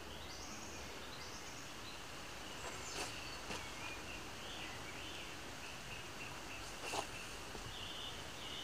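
Birds calling with short chirps over a steady outdoor hiss, broken by two short sharp clicks, the louder one about seven seconds in.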